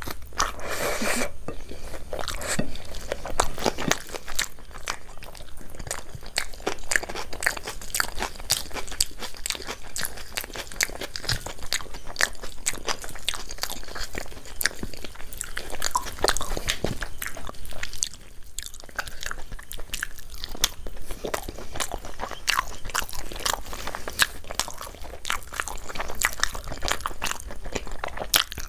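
A person eating into a close microphone: chewing and biting food, with many crisp crunches and wet mouth clicks, irregular and continuous, with a short lull about two-thirds of the way through.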